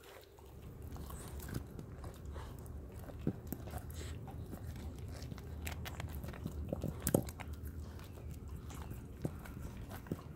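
Renascence Bulldogge puppy gnawing and chewing a whole raw tilapia, bones and all, with irregular sharp crunches and clicks, the loudest cluster about seven seconds in, over a steady low rumble.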